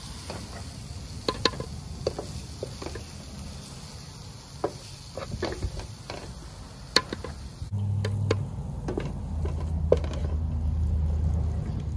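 Wooden spoon scraping and tapping against a metal frying pan and a plastic blender jar as cooked masala is scooped across, over faint sizzling. A low steady hum comes in about eight seconds in.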